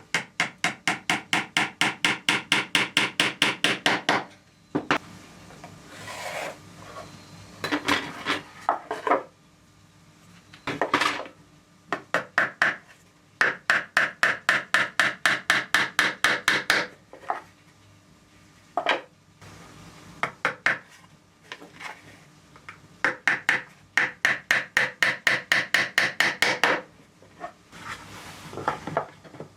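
Rapid back-and-forth hand rasping strokes, about six or seven a second, in runs of several seconds separated by pauses and a few single strokes.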